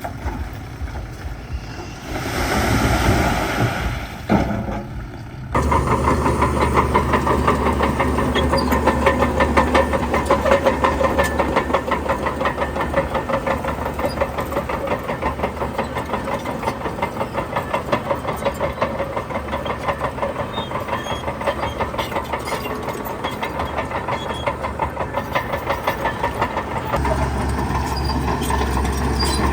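Heavy diesel engine of earthmoving machinery running with a rapid knocking pulse. About two seconds in, a loud rushing hiss lasts a couple of seconds, and a few seconds later the engine sound jumps louder and then runs on steadily.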